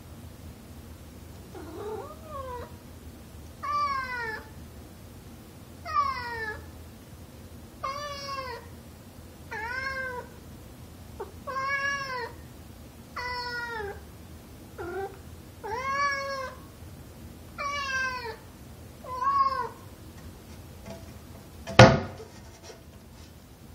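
Tabby cat meowing over and over at a closed door, about a dozen meows one every second or two, each rising and then falling in pitch, demanding to be let through. Near the end there is one loud knock against the door.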